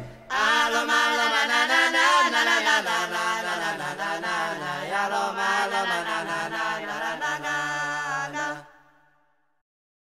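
Background music: unaccompanied voices singing a slow chant in harmony. It fades out near the end into silence.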